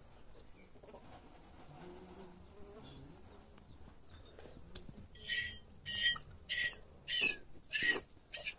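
Milk squirting from a buffalo's teat into a small steel pot during hand milking: about six short hissing squirts, roughly one every half-second, starting about five seconds in, each carrying the same ringing tones of the metal pot.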